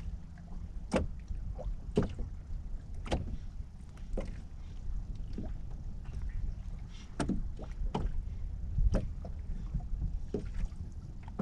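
Small waves slapping against the hull of a small boat at sea in irregular splashes about once a second, over a low wind rumble on the microphone.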